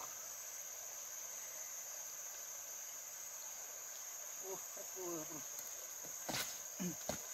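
Steady, high-pitched chorus of forest insects droning without a break. Faint voices come in about two-thirds through, and a couple of sharp clicks sound near the end.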